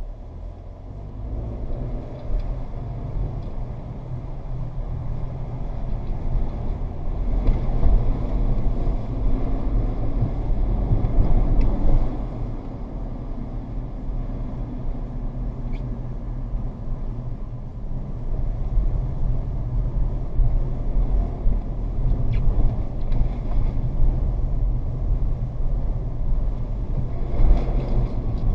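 Steady road and engine rumble inside a moving car's cabin, swelling and easing as the car drives.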